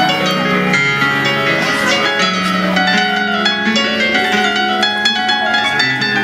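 Instrumental music led by piano, with held low notes that change about every second under a run of quicker higher notes.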